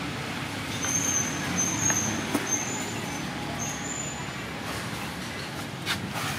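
Steady rumble of road traffic in the background, with a few short high squeaks between about one and four seconds in and a couple of soft knocks.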